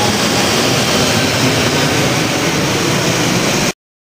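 Airbus A380's four Rolls-Royce Trent 900 turbofans climbing out overhead at takeoff power: loud, steady jet engine noise that cuts off abruptly near the end.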